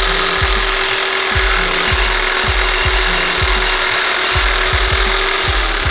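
Pneumatic air chisel hammering steadily as it cuts a relief line through an old rear suspension bushing so it can be peeled out of its bore. A bass-heavy music beat thuds under it about twice a second.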